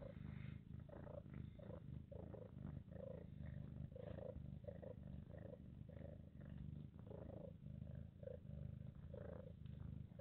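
Mother cat purring with a steady low rumble while her newborn kittens nurse, the purr pulsing about two to three times a second.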